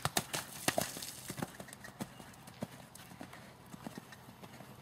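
Hoofbeats of a horse cantering on a sand arena surface, a run of short muffled thuds that are loudest in the first second and a half and fainter after.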